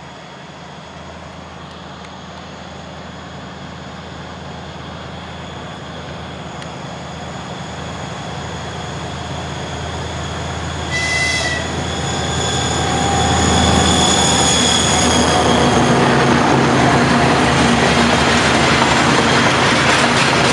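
Diesel-electric locomotive hauling tank cars approaches and passes, its diesel engine running with a steady low drone that grows louder throughout; the uploader says the engine has serious issues. About halfway through there is a brief high-pitched toot, followed by a high whine and the louder rumble of the train going by.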